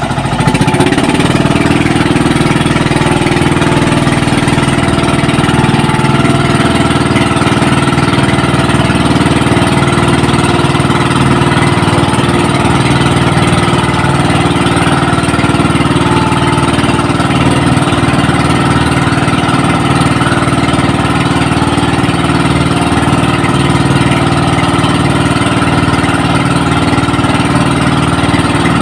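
Small boat engine running steadily at a constant speed, its pitch lifting just after the start.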